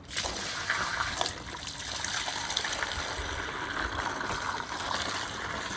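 Soapy wash water gushing out of the drain outlet of a hand-cranked portable mini washing machine, starting suddenly as the plug comes out and then running steadily.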